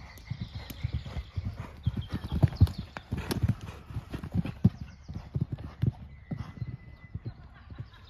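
Hoofbeats of a horse cantering on a sand arena surface: dull, rhythmic thuds at about three a second. They grow loudest in the middle as the horse passes close, then fade as it moves away.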